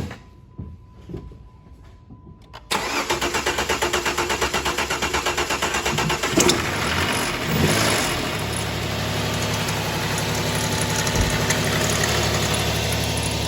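A 2009 Dodge Charger's 2.7-litre V6, with its cam sensor unplugged, starts to crank on the starter after a steady electronic tone, about three seconds in. It catches a few seconds later and runs roughly with a whole bunch of rumbling, which the mechanic puts down to a failed internal water pump whose bearings wobble.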